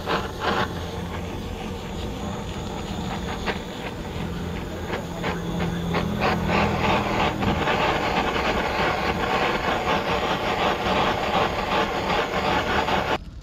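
Handheld butane kitchen blowtorch hissing steadily as its flame melts grated cheese on a foil tray of bhel, with fine crackling; it cuts off suddenly near the end.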